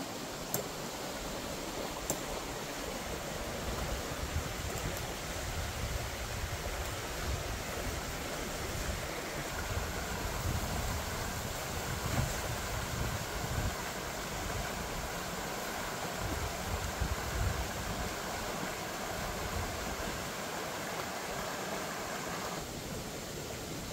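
Steady outdoor rushing noise with low, uneven rumbling from wind buffeting the microphone. A higher, even hiss joins about ten seconds in and cuts off abruptly near the end.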